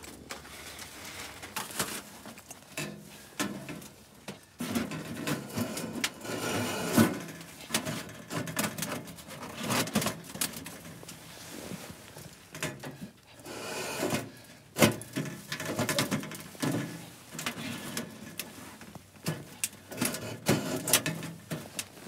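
Irregular knocks, clatters and rustles of hands-on camp work: a canvas pyramid tent being pitched on its pole, a small metal wood stove being handled, and sticks being stacked in the snow. The sharpest knocks come about a third of the way in, near the middle and about two-thirds of the way through.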